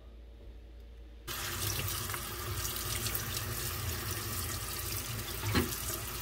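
Kitchen faucet turned on about a second in, water running steadily into a stainless steel sink and over a maitake mushroom being rinsed. One brief knock near the end.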